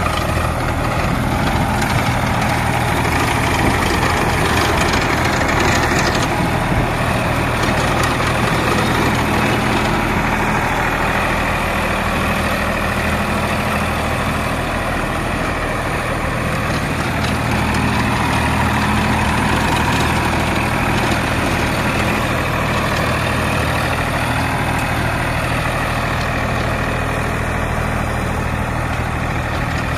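Sonalika tractor's diesel engine running steadily under load while driving a rotavator through soil.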